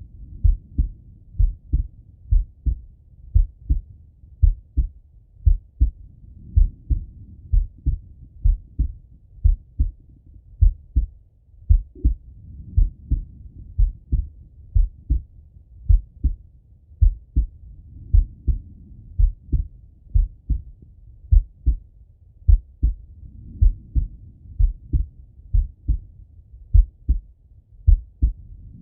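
A man's slow, steady heartbeat heard through a Littmann stethoscope: paired lub-dub thumps, deep and muffled. A faint hiss swells and fades every five or six seconds.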